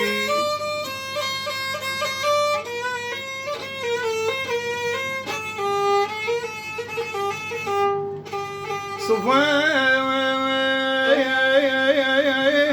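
Violin playing a melodic instrumental passage between sung lines of an Arabic song, with a new held, wavering phrase starting about nine seconds in.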